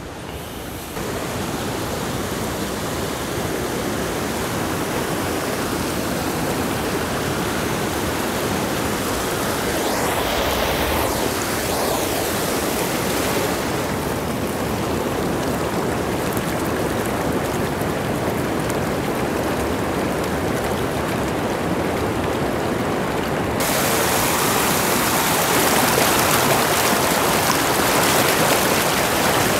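Steady rush of a rocky mountain stream pouring over and between boulders. It fades in at the start and turns louder and more hissing about 23 seconds in, where the rushing water is heard up close.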